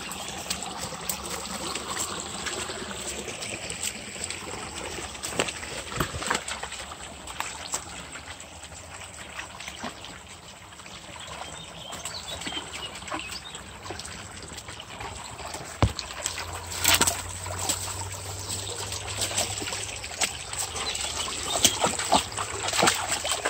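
Small shallow brook trickling over stones, with scattered short knocks and splashes that are loudest about two-thirds of the way through.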